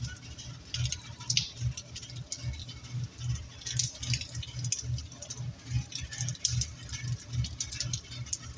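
Heavy rain pattering, with scattered sharp drop ticks, over a low throb that pulses about two to three times a second.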